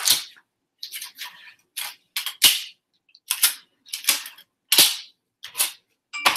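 A run of about ten short, sharp crackles and snaps at irregular intervals, from an object being handled.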